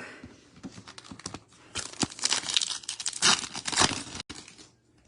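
Trading card pack wrapper being torn open and crinkled: a run of rustling, tearing noise for about two and a half seconds that stops abruptly near the end.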